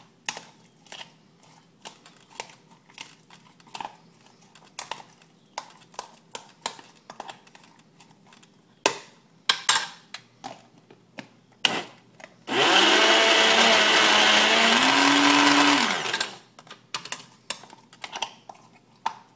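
Countertop blender runs for about three and a half seconds, starting about twelve seconds in, churning frozen strawberries into a thick, ice-cream-like paste. Its motor pitch rises shortly before it stops. Before it, scattered light knocks and clicks.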